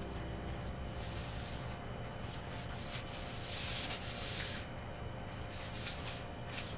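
Wiping and scrubbing a painted wooden floor by hand, a run of rubbing strokes that gets louder about halfway through.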